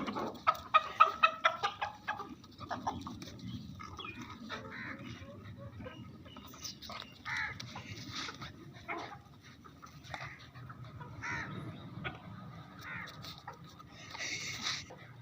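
Animal calls: a quick run of short, sharp repeated calls in the first second or two, then scattered single calls.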